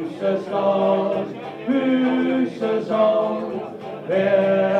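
A man and a woman singing a song together through microphones, holding drawn-out notes, with a brief break about four seconds in.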